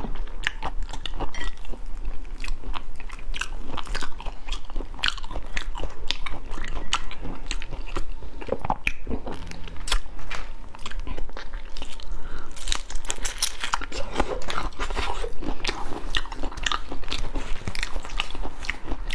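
Close-up eating sounds: a shrimp in chili sauce being pulled apart by hand, its shell cracking, then crunchy chewing and wet smacking, a dense run of irregular small clicks and crunches.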